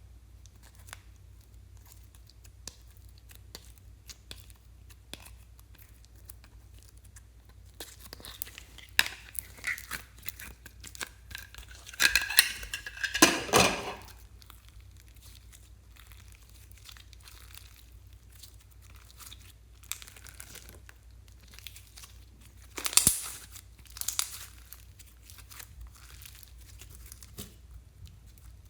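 Close handling sounds: scattered light clicks and taps, with louder crinkling and tearing noises in bursts, the loudest about halfway through and another shorter one near the end, over a faint low hum.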